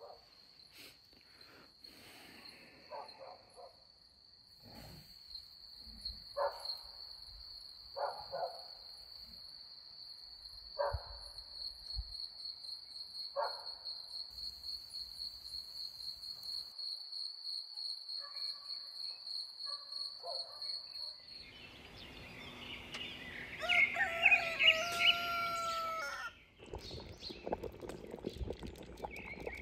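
A rooster crows about three-quarters of the way through, among bird chirps; this call is the loudest sound. Before that there is a quiet stretch with a steady high-pitched tone and a few short, distant calls.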